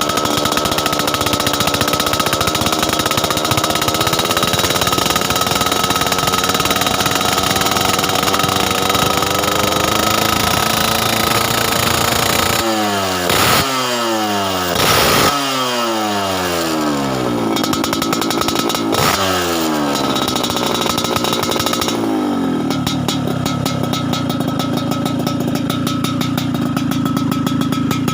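Motorcycle engine, tuned for a dry, raspy 'ngorok' exhaust note, held at steady revs, then blipped sharply three times in quick succession around the middle, the revs falling away after each. One more blip follows, then it settles to idle for the last six seconds.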